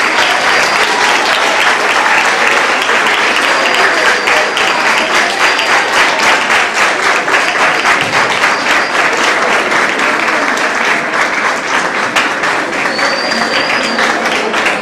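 Audience applauding, a dense steady clapping of many hands that eases slightly near the end.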